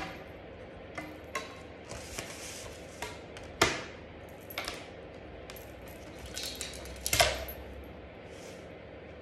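Plastic ruler and pencil handled on a sheet of card on a table: scattered clicks and taps, the loudest about three and a half seconds in and again near seven seconds, with short scratchy rustles in between as the card is marked.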